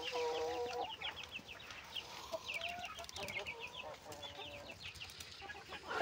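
A flock of young desi cross-breed chickens clucking and calling. A drawn-out call comes at the start and another about four seconds in, over quick, high chirps that repeat throughout.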